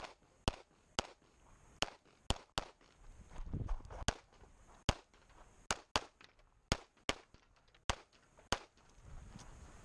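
Competition-pistol gunfire from a red-dot CZ75 Shadow: a string of about a dozen shots, many fired in quick pairs, with a short break of about a second and a half around three seconds in.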